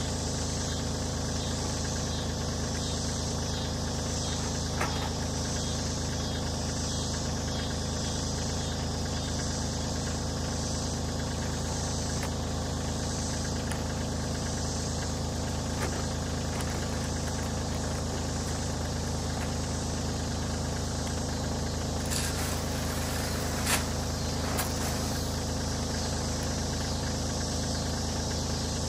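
Compact tractor engine idling steadily, with a few faint clicks and one sharper tap near the end.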